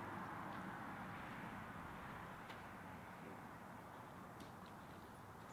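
Faint outdoor park ambience: a steady haze of background noise that slowly fades, with a few faint ticks.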